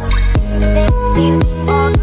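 Background music with a steady beat: sharp percussive strokes about twice a second over a bass line and held notes.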